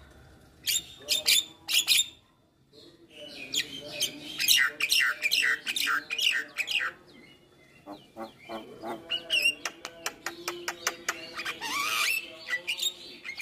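Javan myna (jalak kebo) singing a varied song of sharp calls, harsh chatter and whistles, with a short pause about two seconds in. A rapid run of clicks follows past the middle, and a rising whistle comes near the end.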